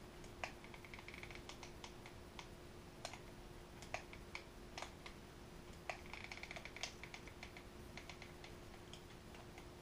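Hot glue gun working: scattered light clicks and taps as the trigger is squeezed and the nozzle is pressed against a servo on a foam rudder, with two short runs of rapid faint clicking. A faint steady hum sits underneath.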